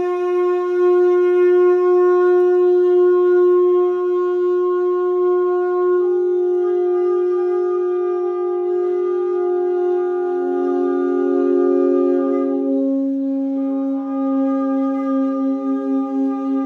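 Several tenor saxophones hold long, overlapping notes that form a sustained, drone-like chord. Single notes move to new pitches a few times, about six, nine and eleven seconds in, while the others keep sounding.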